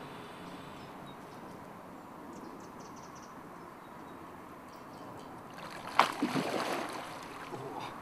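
A carp taking floating mixer bait off the lake surface: a sudden loud splash about six seconds in, followed by about a second of splashing water.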